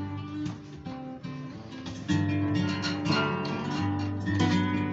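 Acoustic guitar strumming chords, soft at first and growing louder about two seconds in.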